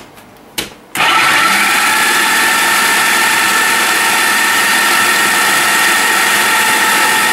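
Two short clicks as the food processor's lid is seated, then about a second in the Hamilton Beach food processor's motor switches on and runs steadily with a whine, its blade chopping frozen banana chunks.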